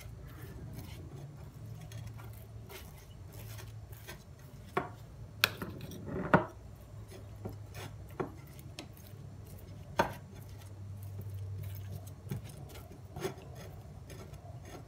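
Metal spoon spreading a garlic-butter paste over a slice of stale bread on a china plate: soft scraping, with several sharp clinks of the spoon against the plate, the loudest about six and ten seconds in, over a low steady hum.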